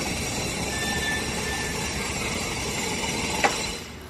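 Corrugated metal roll-up door rolling up with a steady rattle. There is a sharp knock about three and a half seconds in, and the rattle stops just before the end as the door reaches the top.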